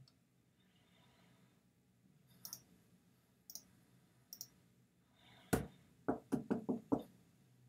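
Computer mouse clicks as quiz answers are selected: three light clicks, then a louder click about five and a half seconds in, followed by a quick run of five louder taps.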